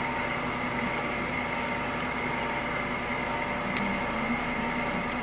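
Steady room hum and hiss with a few faint steady tones running through it, and a faint click about four seconds in.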